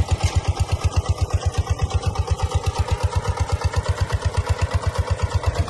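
A jugaad (homemade) tractor's engine running with an even chugging beat, about eight beats a second.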